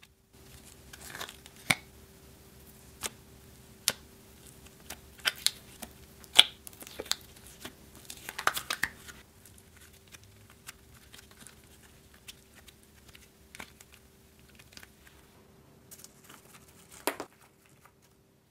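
Slime being worked out of its thin plastic heart-shaped container and pulled apart: irregular small clicks, crackles and sticky pops, busiest in the first half, with one more sharp crackle near the end.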